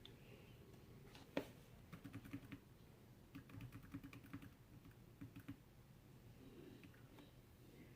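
Faint typing on a computer keyboard: a few short runs of quick key clicks with quiet gaps between them.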